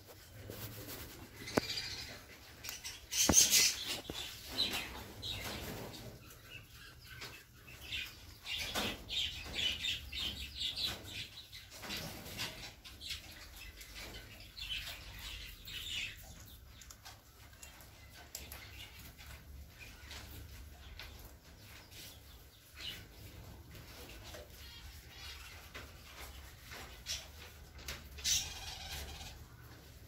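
Small caged parrots chirping and squawking on and off, with wing flutters and light clicks and taps as the birds move about the wire cage. The loudest burst comes about three seconds in.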